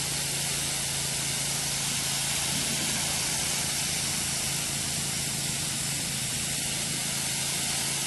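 Garden hose spray nozzle jetting a steady stream of water onto a rubber-granule bunker liner: an even, unbroken hiss of spray. A steady low engine hum runs underneath.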